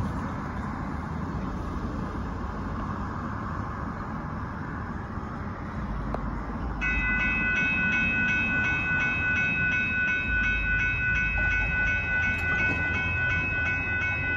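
A railroad crossing warning bell starts suddenly about seven seconds in and rings steadily with a rapid, even ding. This is the sign that the crossing signal has activated for an approaching train. Before the bell there is only wind and road-traffic noise.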